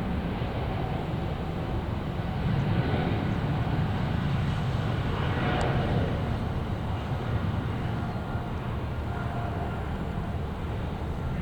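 Jet airliner engines at takeoff power: a deep, steady roar that swells a few seconds in, is loudest around the middle, then eases slightly.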